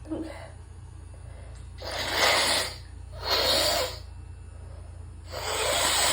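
A person with a badly congested nose pushing air hard through it three times, each a long, hissing rush of about a second. The blocked sinuses are the cause.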